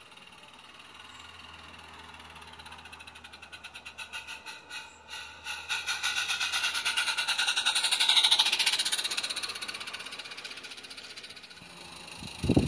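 7/8ths-scale live steam garden railway locomotive chuffing past at close range: quick, even exhaust beats grow louder as it approaches, peak about eight seconds in, then fade as it runs away. A short loud knock comes near the end.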